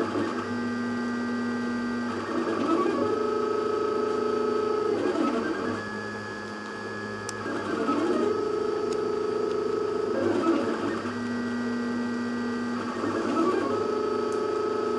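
3D printer's stepper motors whining in sets of steady tones as the nozzle traces a small rectangular column in spiral vase mode. The pitch holds for about two seconds along each side and sweeps at each rounded corner, repeating lap after lap.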